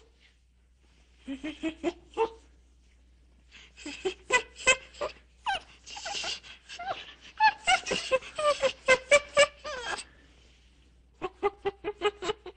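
Monkeys calling: bursts of short, sharp chattering calls and squeals that bend in pitch, with brief quiet pauses about a second in and near ten seconds.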